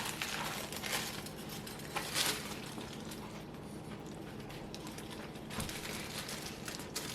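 A person biting into and chewing a toasted sandwich with crisp griddled bread, a few short crunches over a low steady hum.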